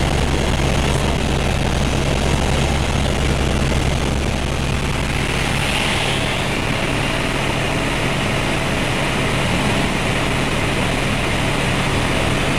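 Helicopter in flight: steady engine and rotor noise with a deep hum underneath that thins out about five seconds in.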